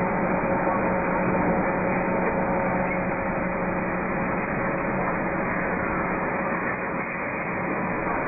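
Steady running noise of automatic foundry mold-handling machinery, an even hum with a few steady tones that do not change.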